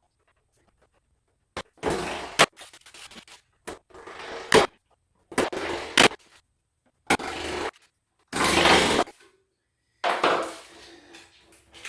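Particle-board closet organizer parts being handled and fitted together: a string of short scrapes and sharp knocks, about half a dozen, each under a second, with silent gaps between them.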